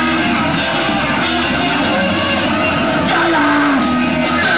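Hardcore punk band playing live: distorted electric guitar and drum kit, loud and dense without a break.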